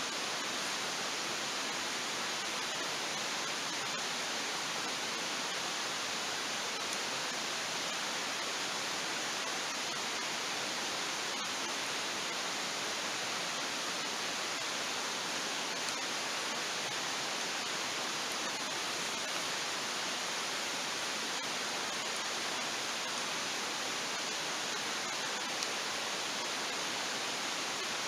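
Steady, even rushing noise like running water, with a few faint ticks now and then.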